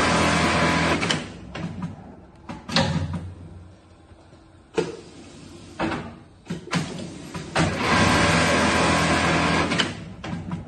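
Juki bartack sewing machines running in two fast stitching bursts, the first stopping about a second in and the second starting about three-quarters through and stopping shortly before the end. Short mechanical clicks and clunks of the automation in between.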